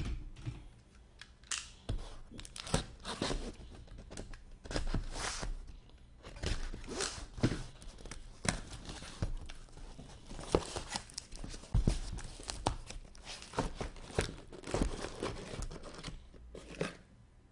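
A sealed inner case of hockey card boxes being torn open by hand: irregular tearing and crinkling of its wrap, tape and cardboard, with the boxes handled inside.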